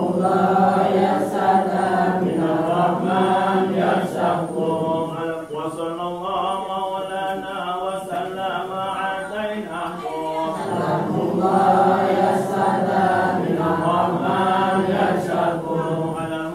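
A crowd chanting dhikr together, a continuous many-voiced recitation that rises and falls in pitch without pause.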